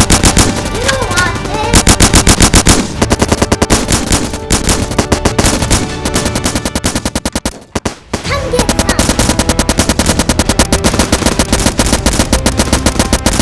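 Rapid automatic gunfire, shot after shot in fast, even bursts, with a short break about eight seconds in. It is a loud gunfire sound effect rather than the soft pop of foam-dart blasters, with steady background music underneath.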